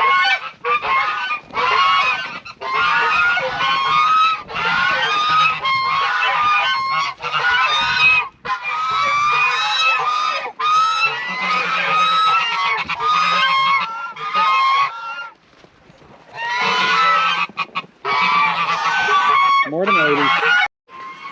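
A flock of domestic waterfowl calling loudly and almost without pause, many harsh calls overlapping, with a short lull about sixteen seconds in.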